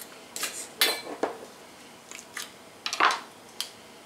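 Kitchen knife prying and scraping at the stuck lid of a seasoning shaker that won't open. It makes a series of short clicks and scrapes, loudest about a second in and again about three seconds in.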